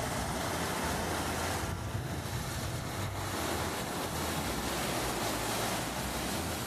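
Fast, shallow river rapids rushing over and around boulders: a steady, loud rush of white water.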